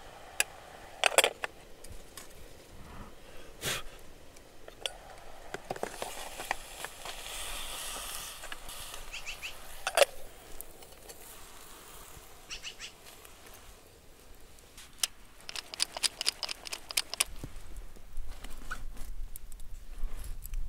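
Khorkhog cooking: sharp metal clinks as hot stones and meat go into an aluminium milk can, with a few seconds of sizzling hiss partway through. Near the end comes a quick run of clinks as the can is handled and set down in the embers.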